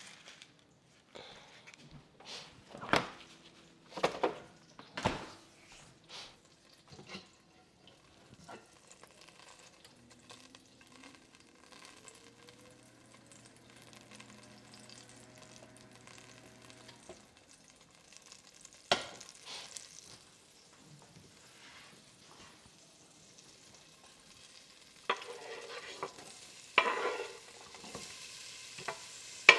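Food frying in a pan: a run of sharp utensil knocks against the pan and one more knock midway. Near the end comes steady sizzling with stirring and scraping.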